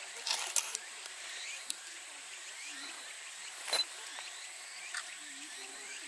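Quiet outdoor ambience: a steady hiss with faint, distant voices and a few sharp clicks, the loudest one a little before four seconds in.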